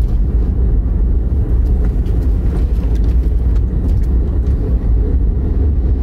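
Steady low rumble of a vehicle's engine and tyres while driving, heard from inside the cabin.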